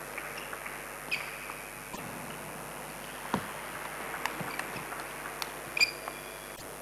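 Table tennis rally: the celluloid ball clicking sharply off rackets and table at irregular intervals, with shoes squeaking on the court floor about a second in and again, loudest, near the end, over steady background noise.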